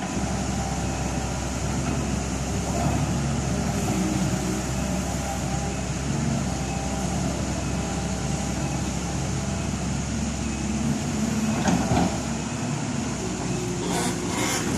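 Caterpillar hydraulic excavator's diesel engine running steadily while digging, with a louder knock about twelve seconds in and a few clanks near the end.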